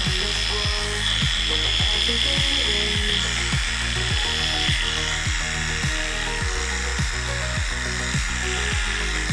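Heiniger electric animal clipper running with a steady buzz as it shaves a cat's fur, over background music with a steady beat.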